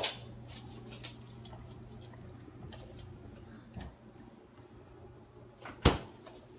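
A steady low hum with a few light clicks, then a single sharp thud a little under six seconds in as the refrigerator door is shut.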